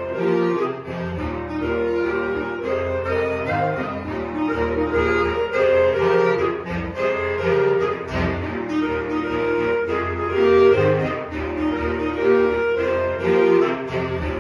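Instrumental music, continuous and melodic, with notes changing in a steady rhythm.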